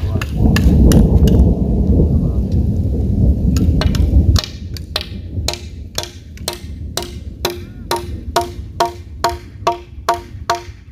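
Repeated blows at the base of a wooden post being set in its hole, about two a second and quickening slightly, each with a short ringing knock. A loud low rumble fills the first few seconds and stops abruptly before the blows start.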